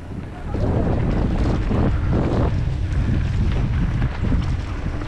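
Wind buffeting the microphone during a mountain-bike descent: a loud, low rumble that swells about half a second in and stays up.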